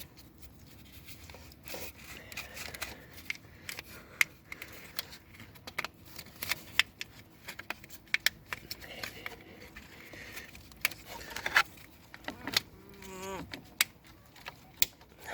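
Scattered clicks, taps and rustling of hands and small tools working on engine-bay wiring while the crankshaft sensor wire is repaired, with a short wavering buzz about 12.5 seconds in.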